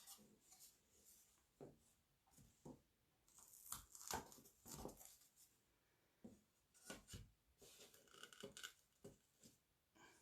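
Faint, irregular rustling and soft taps of a sticky craft transfer sheet being handled, peeled and pressed down onto a board.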